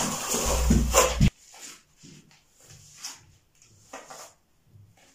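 Trowel scraping tile cement, a loud rasp lasting about a second that stops abruptly, followed by a few faint, scattered scrapes and taps.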